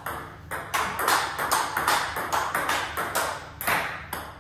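Table-tennis rally: the ball clicking sharply off the table and off paddles faced with DHS Hurricane 3 Neo rubber, about four clicks a second.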